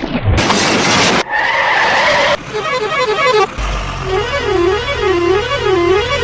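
A string of vehicle sound effects: a short noisy whoosh about half a second in, a steady horn-like tone, then a siren that first warbles rapidly and then wails up and down about once a second over a low engine hum.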